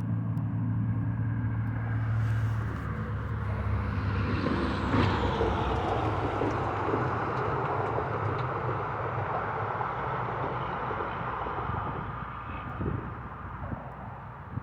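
A motor vehicle passing by, its engine hum giving way to road noise that builds to a peak about five seconds in and then slowly fades.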